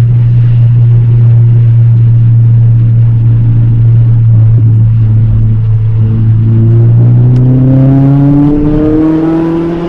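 Renault Clio RS 197's 2.0-litre naturally aspirated four-cylinder engine pulling under load, its note slowly climbing. Near the end the note breaks briefly with a gear change, then the revs climb again more quietly.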